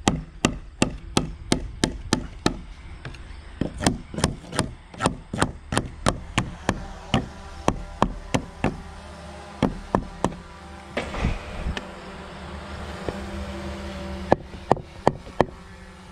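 Hammer blows on wood: a steady run of sharp strikes about three a second, a pause of a few seconds partway through, then a quicker run of strikes near the end.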